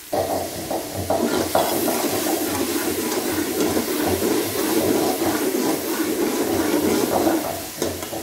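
Onion and spice masala sizzling and spluttering hard in hot oil in an aluminium pressure cooker as it is stirred with a metal slotted spoon. It starts suddenly and eases off near the end.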